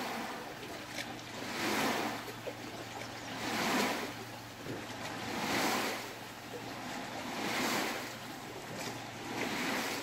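Lake water lapping, swelling and easing about every two seconds.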